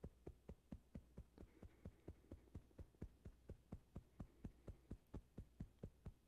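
Faint, steady tapping of a hand on the breastbone, about five soft taps a second: acupressure tapping of the CV17 point at the centre of the sternum.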